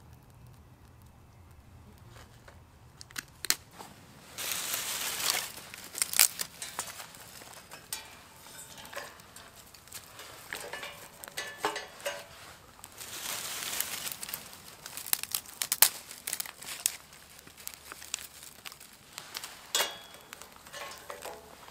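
Dry twigs rustling and snapping as a handful is broken up and laid onto burning birch bark in a metal fire pit, with sharp cracks scattered throughout. The handling starts about three seconds in.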